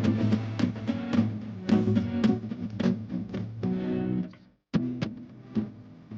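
Background music led by plucked guitar over a steady beat. It cuts out for a moment about two-thirds of the way through, then resumes.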